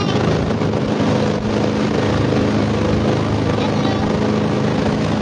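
Motorboat engine running at a steady drone, with a constant hiss over it.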